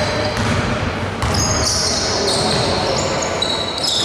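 A basketball being dribbled on an indoor hardwood court during play, with short high squeaks of shoes on the floor.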